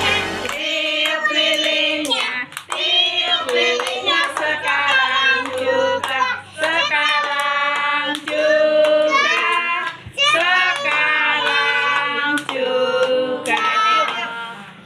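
A small group of children singing a birthday song together while clapping their hands.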